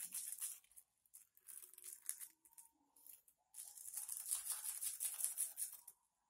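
Small plastic seasoning sachets of instant noodles being torn open and squeezed, crinkling and rustling in several short bursts, with a longer one in the second half.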